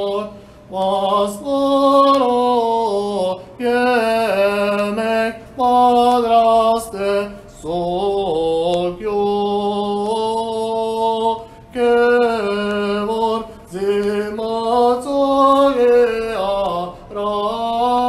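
A solo voice chanting an Armenian liturgical hymn unaccompanied, in ornamented phrases with short breaks for breath between them.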